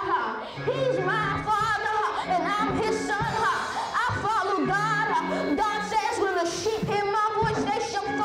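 Gospel singing with heavy vibrato over instrumental accompaniment, with steady low held notes underneath.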